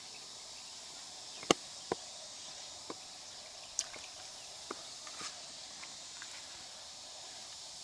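A handful of sharp clicks and taps of mussel shells being handled, the loudest about a second and a half in, over a steady high outdoor hiss.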